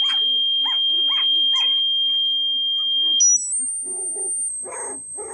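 A loud, steady, high electronic test tone for checking the puppies' hearing, over short repeated cries from Dalmatian puppies. A little over three seconds in, the tone jumps higher in a few quick steps and then holds at a much higher pitch, while the puppies' cries grow louder.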